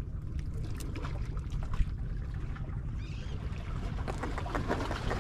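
Wind rumbling on the microphone at the seashore, with a few faint clicks and knocks.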